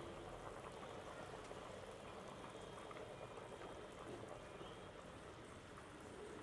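Liquid boiling in a cooking pot: a faint, steady bubbling.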